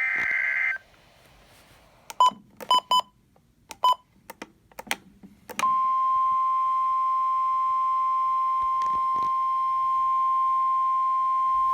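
NOAA Weather Radio alert signal: the end of a SAME data burst, a few short beeps and clicks, then from a little before six seconds in the steady single-pitch 1050 Hz warning alarm tone, held for about six seconds before the watch announcement.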